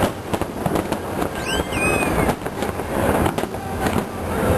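Aerial fireworks bursting in a rapid string of bangs and crackles, with a brief high whistle sweeping up and down about a second and a half in.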